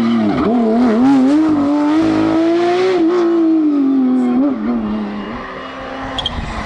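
Rally car engine at full song on a gravel or tarmac stage, its pitch rising and falling repeatedly with throttle and gear changes, then dropping and fading about five seconds in as the car pulls away.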